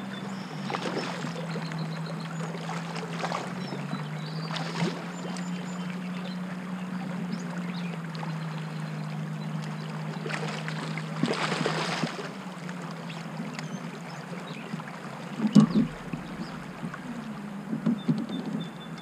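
Torqeedo Ultralight 1103 electric kayak motor running with a steady low hum, its pitch stepping down slightly near the start and again about four seconds in, over water noise along the hull. The hum fades out about two-thirds of the way through, followed by a sharp knock and some lighter clatter near the end.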